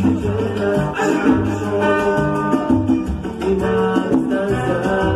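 Latin dance music with guitar and a steady beat, played loud through a sonidero's mobile sound system.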